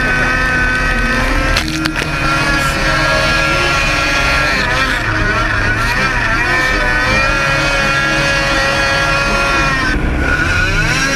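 Racing snowmobile engine running hard at high revs while the sled skims across open water, a steady loud whine. The pitch wavers about halfway through, and near the end it dips and then climbs again.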